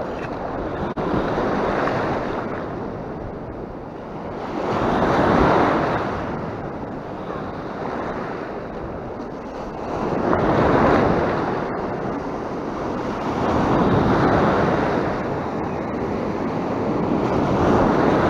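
Sea waves breaking and washing over shoreline rocks, the surf swelling in about five surges, one every three to five seconds, with wind buffeting the microphone.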